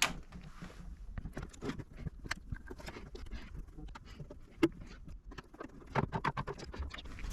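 Scattered light clicks and taps, with a sharper knock about four and a half seconds in and a busier cluster near the end.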